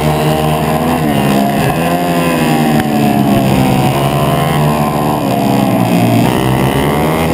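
A 140cc pit bike's single-cylinder four-stroke engine racing hard, heard from on board. Its pitch falls and climbs again several times as it brakes and accelerates through a run of corners.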